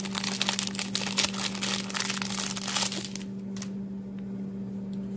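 Packaging crinkling and rustling as it is handled, stopping about three seconds in, then a couple of faint clicks over a steady low hum.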